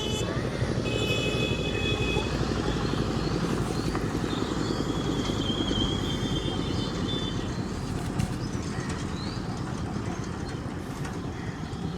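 An engine running steadily with a rough, low rumble, and a thin high steady tone for a few seconds in the middle.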